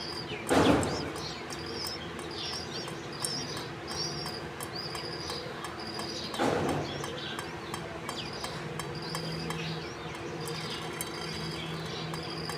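Bulbuls at the nest chirping: short, high calls repeated over and over. Two brief, louder rushes of noise break in near the start and about six and a half seconds in.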